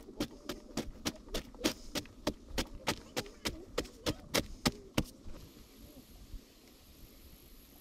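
A long-handled digging tool jabbing into hard clay: sharp, evenly spaced strikes about three a second, which stop about five seconds in. After that there is only a faint steady hiss with a thin high whine.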